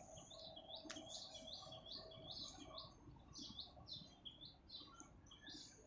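Faint small-bird chirping, short high chirps repeated about three times a second.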